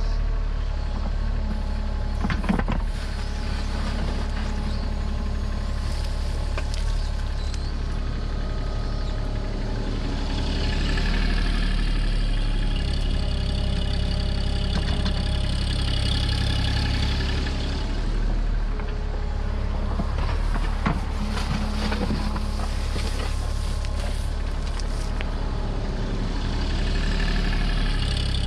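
Mini excavator digging: its diesel engine runs steadily, a higher whine rises over it in two long stretches as the hydraulics work under load, and there are a few sharp knocks from the bucket.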